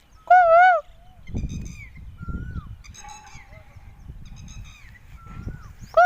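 A bird calling: two loud, wavering calls, one just after the start and one at the very end, with fainter, shorter calls in between.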